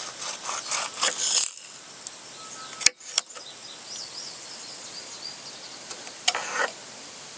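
Small kitchen knife slicing through a large ripe tomato on a plastic cutting board. There are quick scraping strokes in the first second and a half, a sharp click near three seconds in, and another short cut a little after six seconds. Faint birdsong comes in over the middle.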